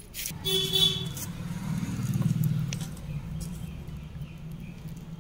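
A low, pulsing rumble like a running engine, swelling about two seconds in and then holding steady.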